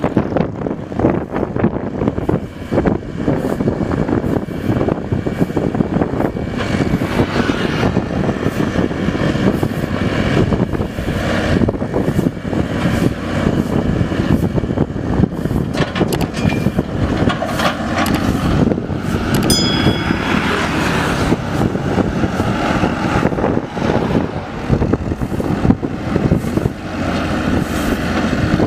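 Mini excavator's diesel engine running steadily while the machine works, with irregular knocks, and a brief high squeal about two-thirds of the way through.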